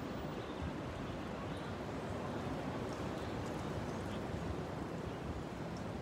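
Steady outdoor background noise: an even low rumble with no distinct calls or knocks.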